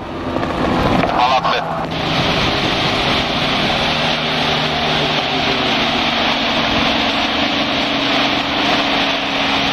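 Light helicopters flying a formation display overhead: a steady engine and rotor drone under a broad, even hiss. A brief voice, like a radio call, comes through about a second in.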